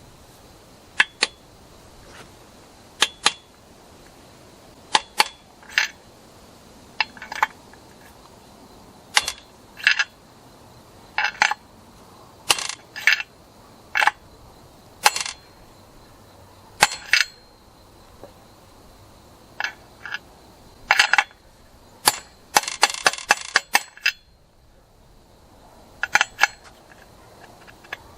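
Sharp taps on a socket used as a driver to seat a crankshaft seal in a chainsaw crankcase. The taps come mostly in pairs a second or two apart, with a quick run of rapid taps near the end.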